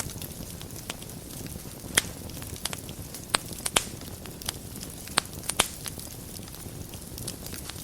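Wood fire burning in a fireplace: a steady low rush of flames with irregular sharp crackles and pops, a few louder snaps about two, three and a half, and five and a half seconds in.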